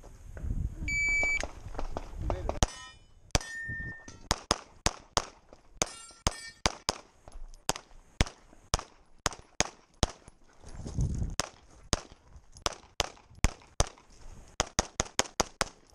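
A shot timer's start beep about a second in, then rapid pistol fire from a Staccato P: dozens of shots in fast pairs and strings, with a short break about two-thirds through. Some hits carry a metallic clang.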